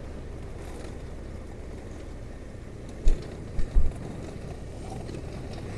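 Motorcycle riding slowly on a dirt road: a steady low rumble of engine, wind and road noise, with a few short low thumps a little past halfway.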